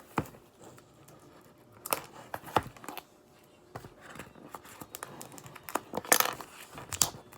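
A sealed cardboard package being cut and torn open: a few sharp snips and clicks, then rustling and crinkling of the packaging, loudest about six seconds in.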